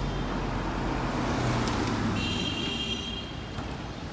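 Street traffic: a motor vehicle's engine running close by and swelling as it passes, with a brief high-pitched squeal a little over two seconds in.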